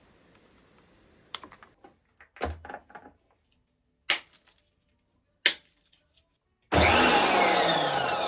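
Several sharp clicks, a few seconds apart, typical of the on/off switch of a STIHL RE90 pressure washer being flicked while the machine does not start. Near the end a loud whirring sets in suddenly, its whine falling steadily in pitch.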